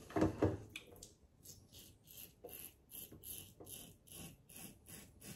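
Double-edge safety razor scraping through lathered stubble in short strokes, about two or three a second. It is preceded near the start by two brief low thumps.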